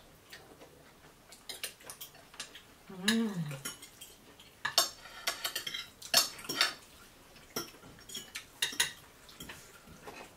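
Metal forks clinking and scraping on plates in short, irregular clicks as several people eat, with one short voiced sound about three seconds in.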